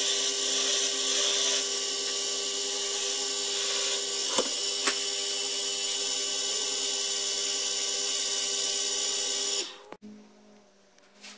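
Wood lathe running with a steady motor whine while a tool and then a sanding block are held against the spinning wooden spindle, with a hiss over the top. Two sharp clicks come about halfway through, and the sound drops away suddenly near the end.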